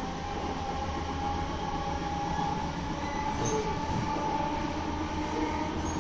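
Electric passenger train running at speed, heard from inside the carriage: a steady rumble of wheels on the track with a thin, steady whine over it.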